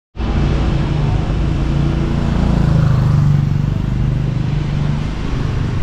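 Motor vehicle engine running on a city street, a steady low drone over traffic noise.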